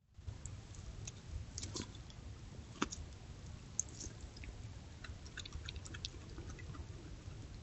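Coyote chewing and crunching on a deer gut pile and bones: scattered sharp cracks and clicks, the loudest a little under three seconds in, over a steady low rumble.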